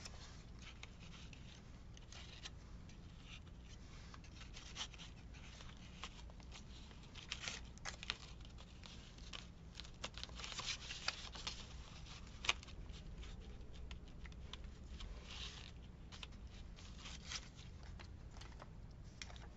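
Faint handling of paper and craft pieces on a tabletop: scattered light clicks, short scrapes and paper rustling, with one sharper tap a little past halfway.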